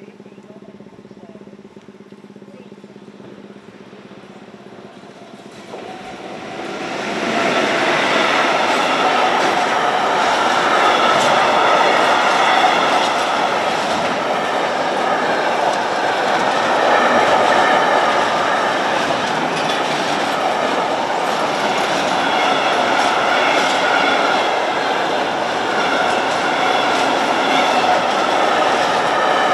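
A low steady hum, then about six seconds in a freight train of tank and container wagons arrives at the level crossing and runs past, its wagons clattering loudly and continuously over the rails.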